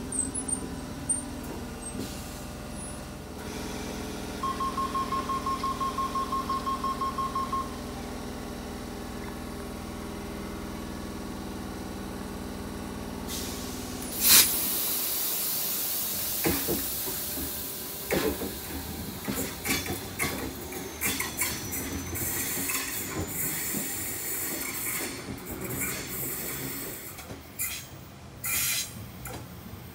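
Sydney Trains Tangara electric train standing at the platform with a steady electrical hum. About 4 s in comes a rapid run of door-closing warning beeps lasting about three seconds. Near the middle there is a sudden loud hiss of air, and then the train pulls out with a rumble and clattering wheels.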